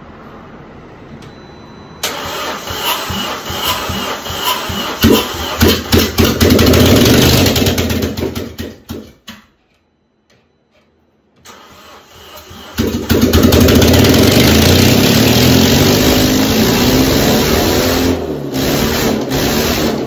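Audi 2.0T turbocharged four-cylinder engine cranked and started about two seconds in, running unevenly with a few rev peaks before fading out into silence. About thirteen seconds in it starts again and runs steadily.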